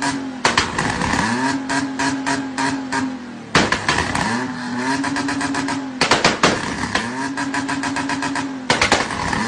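Car engine revved hard and held at a steady high pitch, with rapid crackling, letting off and climbing back four times.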